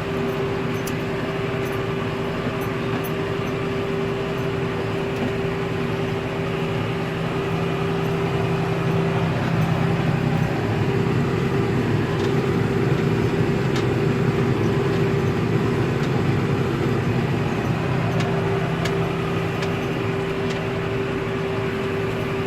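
John Deere 6930 tractor's six-cylinder diesel engine running steadily under load while pulling a plough, with a constant whine over the engine's drone. It gets a little louder about halfway through.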